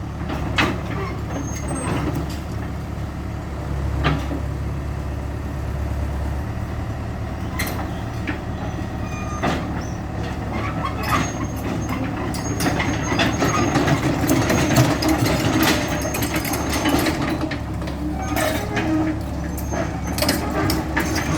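Hitachi EX100-2 hydraulic excavator working, its diesel engine running steadily, with scattered sharp knocks and clanks that come more often and louder in the second half.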